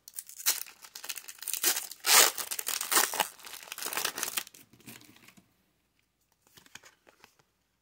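Foil wrapper of a Pokémon card booster pack being torn open and crinkled as the cards are pulled out. It is a rough, crackling tearing that goes on in bursts and stops about five seconds in.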